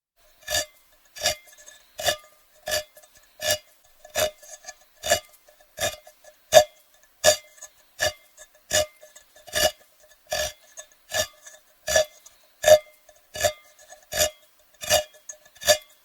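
Handheld crank can opener cutting around a metal can: a sharp metallic click with a short ring at each turn of the key, about three every two seconds, with fainter scraping ticks between them. It starts about half a second in.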